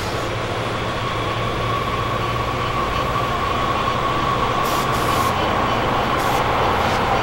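Metro train rumble, steady and growing slowly louder, with a high whine that dips slightly in pitch near the end.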